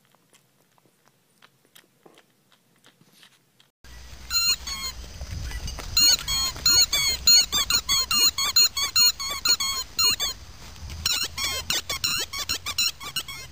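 Faint soft ticks of a puppy sucking on a pacifier. About four seconds in these give way to a boxer chewing a rubber squeaky toy, which gives rapid high-pitched squeaks in quick runs with a short pause near the end.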